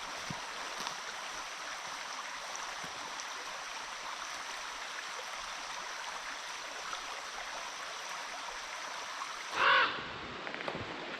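Steady rushing of a brook, then a single loud squawk from a bird about nine and a half seconds in; the birds are circling and squawking, likely because of a nest nearby.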